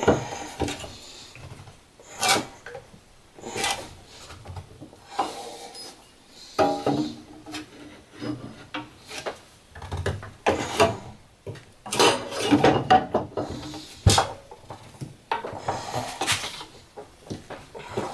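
Irregular knocks, clunks and scraping as the long edge of an aluminium sheet is pressed and bent by hand in a clamped bending setup.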